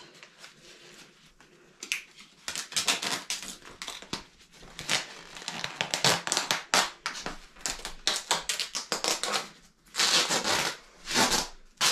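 Duct tape being pulled off its roll in a quick series of rasping pulls and wrapped around foam pipe insulation. The pulls start about two seconds in and go on almost without a break.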